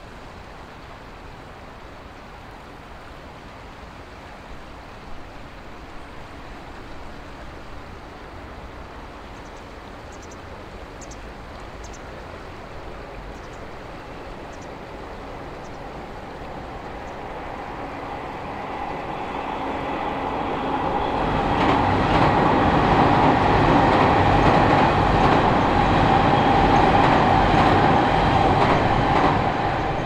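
Electric commuter train of the Tokyu Den-en-toshi Line crossing a steel truss overpass. It builds from faint to loud from about halfway in, with a steady whine and a clatter of wheels over rail joints, is loudest in the last third and begins to fade at the very end. Before it arrives there is only the steady rush of the river.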